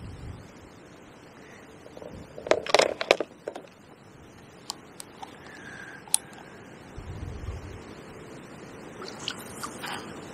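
A cluster of sharp clicks and scrapes about two and a half seconds in, then a few single ticks, over a steady background. There is a brief low rumble of wind on the microphone about seven seconds in.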